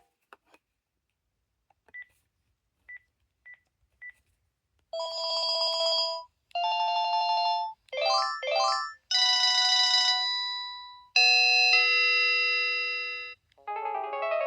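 Panasonic KX-TGA651E cordless phone handset: a few faint clicks and four short beeps, then its electronic ringtones played one after another, each lasting a second or two. One is a trill, one is two quick rising sweeps, and others are held tones. Near the end a many-note melody starts.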